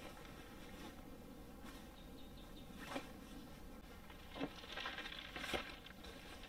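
Quiet handling sounds of camp gear being loaded onto an ATV: a few light knocks and a scraping as a plastic cooler is set onto the rear rack, over a faint outdoor background.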